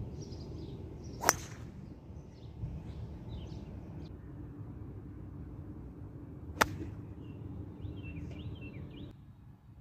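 Two golf shots: a driver strikes a ball off the tee with a sharp crack about a second in, then an iron strikes a ball from the fairway with a second sharp click past the middle.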